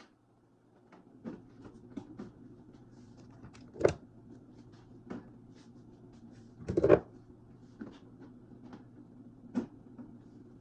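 Knocks and clatters of containers, shelves and drawers being handled during a fridge clean-out, with two louder thumps about four and seven seconds in, over a steady low hum.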